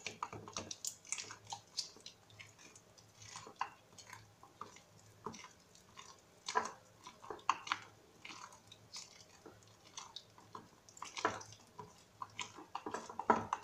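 Thick black soap paste being stirred and mashed by hand in a stainless steel jug: irregular soft wet squelches and small clicks, a few louder ones now and then.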